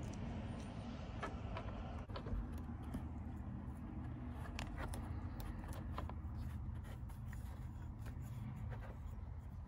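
Faint rustling and small ticks of hands handling a cut piece of adhesive Velcro and pressing it onto a bow riser, over a steady low background rumble.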